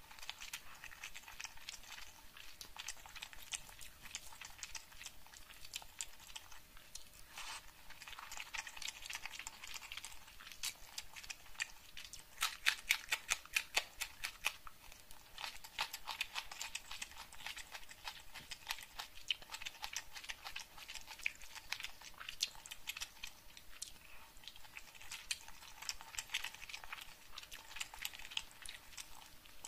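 Close-miked eating by hand: fingers squishing and mixing rice through thick egg curry, and wet chewing with mouth smacks, heard as a dense run of small sticky clicks. The clicks come loudest and fastest around the middle.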